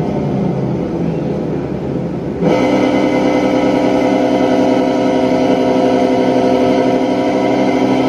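Sanyo top-loading washing machine running its spin cycle, the motor and spinning tub giving a steady mechanical hum. About two and a half seconds in, the sound abruptly gets louder and settles into an even, multi-tone hum.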